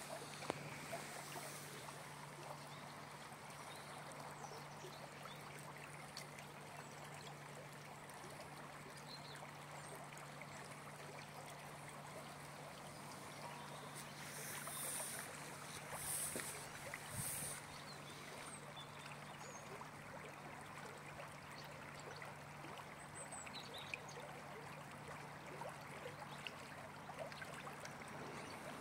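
Small shallow stream flowing over its bed: a faint, steady rush of water. A steady low hum runs underneath, and a few short hissing bursts come about halfway through.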